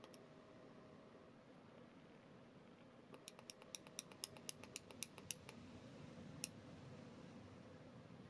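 Flashlight electronic switch clicked in a quick run of about ten presses, then once more about a second later: the ten-clicks-and-hold sequence that switches the Anduril 2 firmware into Advanced UI. A single switch click comes right at the start.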